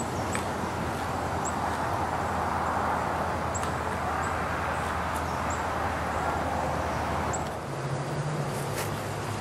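A steady low engine hum with short, high bird chirps about once a second. The hum changes about seven and a half seconds in.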